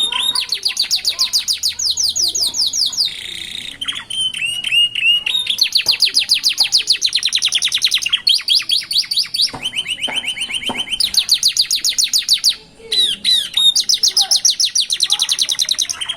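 Young domestic canary singing: fast trills of identical repeated notes, each run lasting one to three seconds before the bird switches to a new note type, with a brief break about twelve seconds in.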